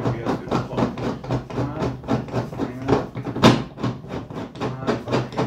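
Rapid knocking and clattering from hands working the egg-turner tray and its threaded axle and nut inside a styrofoam incubator, several small knocks a second, with one louder knock about three and a half seconds in. A steady low hum runs underneath.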